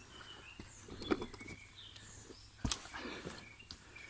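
Footsteps on a wet forest trail: a few irregular steps and scuffs, the loudest just under three seconds in, with birds chirping faintly.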